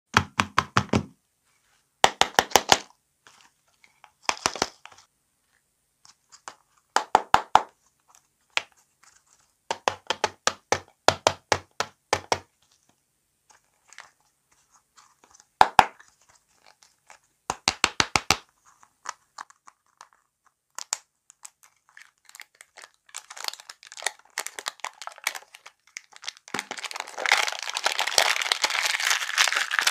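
Fingertips and nails tapping on plastic lollipop toy-box balls in short runs of quick clicks. About two-thirds in, plastic wrapper crinkling and tearing as a ball is unwrapped, growing louder toward the end.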